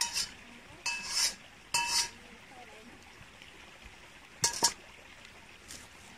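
Metal eating utensils clinking against metal dishes: four short, ringing clinks, three in the first two seconds and one more about four and a half seconds in.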